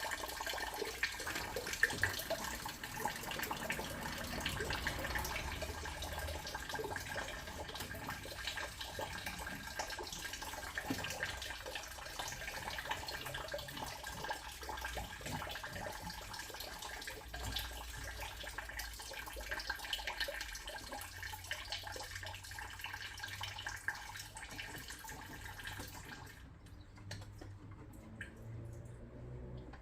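Water running steadily from a tap or hose, with a thin steady whine over the rushing; the flow is shut off near the end.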